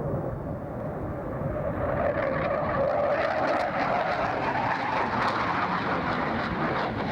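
Jet engine noise from a Tornado GR4's twin RB199 turbofans, a broad roar that swells about two seconds in, with a whine rising in pitch.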